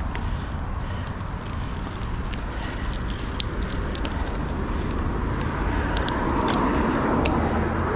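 Steady road and wind noise from riding a bicycle, growing louder for a couple of seconds near the end, with a few sharp clicks.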